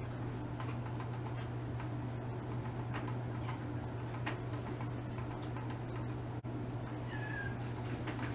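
A cat meowing in protest, with one clear meow about seven seconds in, over a steady low hum and scattered light clicks.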